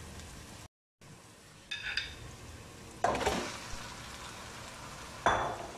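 Sliced onions and ginger-garlic paste sizzling steadily in hot oil in a pot, with a short metallic clink about two seconds in. About three seconds in, and again near the end, the sizzle surges louder as raw chicken pieces go into the hot oil and are moved about. The sound cuts out completely for a moment under a second in.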